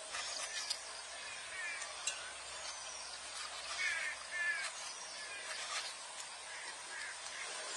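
Kitchen knife cutting grooves into a peeled pineapple to take out the eyes: short crisp cuts and scrapes through the fruit flesh. Birds call in the background.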